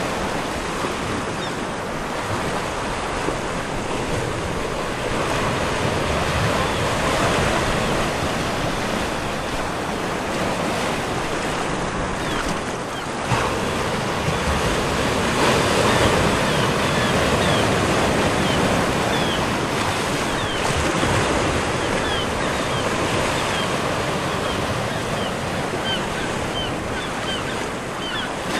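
A steady rushing noise, with faint short high chirps scattered through its second half.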